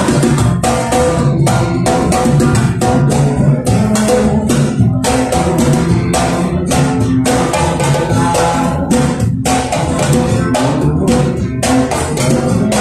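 A band playing an instrumental passage: drums and guitar over a steady beat, with no singing.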